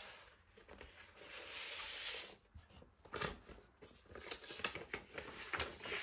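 Paper inner sleeve and cardboard record jacket rustling and sliding as a vinyl LP is pulled out, with a series of short scrapes and ticks as the disc slides against the paper.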